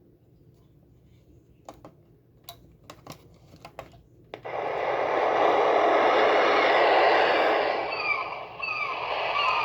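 A few faint button clicks, then about four seconds in the Timex alarm clock's ocean nature-sound setting starts suddenly through its small speaker: a recorded surf wash that swells and then eases, with short falling bird calls over it near the end.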